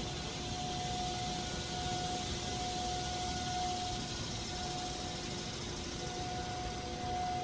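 Distant outdoor warning sirens sounding a steady tone that swells and fades in loudness, under a constant high buzz of cicadas and a low rumble of wind on the microphone.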